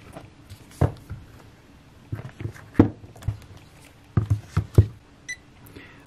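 Scattered clicks and light knocks, about six of them, from a tablet being handled and set down on a bench surface, with a short beep near the end.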